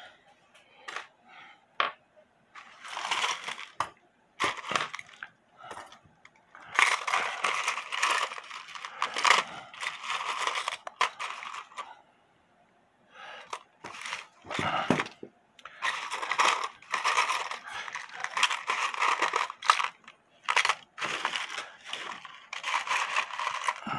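Metal clinking and rattling as a brass clock movement is handled, in long stretches with a few short pauses.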